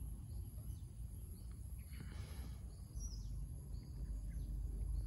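Outdoor ambience: wind rumbling on the microphone, with a few short, high bird chirps and one clearer sweeping call about three seconds in. A brief rustle comes about two seconds in.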